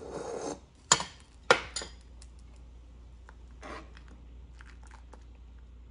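A metal spoon scraping and clinking against a ceramic bowl and a stainless steel pot as cornstarch slurry is tipped into simmering soup and stirred. There is a short rush at the start, then two sharp clinks, the loudest sounds, about a second and a second and a half in, followed by lighter taps.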